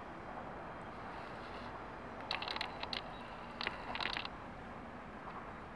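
Faint, steady noise of a distant electric locomotive and freight train approaching on the line, with two brief clusters of high scratchy clicks about two and a half and four seconds in.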